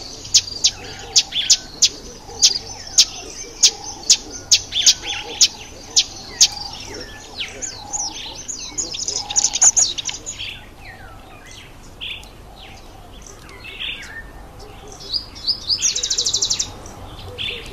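Northern red bishops calling: sharp, high chirps repeated about two or three a second, giving way to a busier twittering chatter. Near the end comes a fast, buzzy trill.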